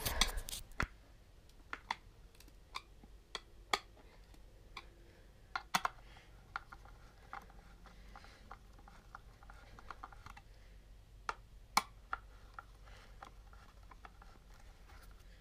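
Faint, scattered clicks and light knocks at irregular intervals from wooden pallet boards being handled and set down.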